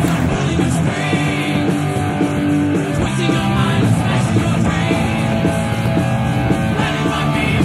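Loud rock music with guitar and singing.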